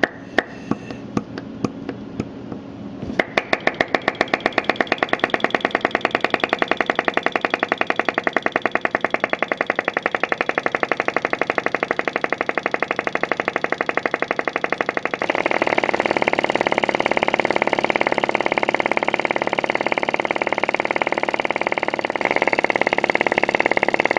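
Prototype Solar flame licker (vacuum) engine being started and running: a few slow, separate clicks as the flywheel is pushed by hand, then about three seconds in it catches and runs with a fast, even clicking on every cycle. The clicking gets louder about fifteen seconds in and again near the end.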